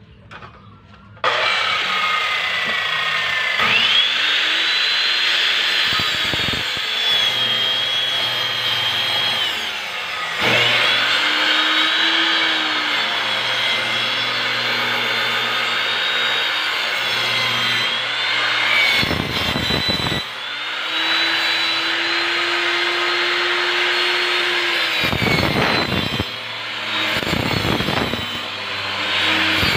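Corded circular saw cutting through a plywood sheet, starting about a second in. Its motor whine sags and recovers as the blade is pushed through the wood, with short breaks near the middle and near the end.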